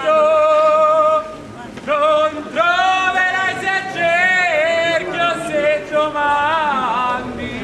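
A single voice singing unaccompanied: a held note, a short break about a second in, then phrases with wavering, sliding pitch.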